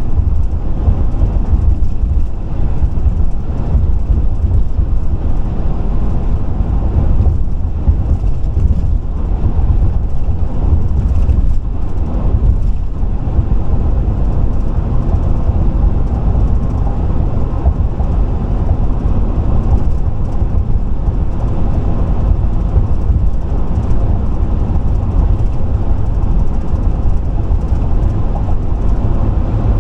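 Steady low rumble of a car driving at highway speed, with road and tyre noise and no distinct events.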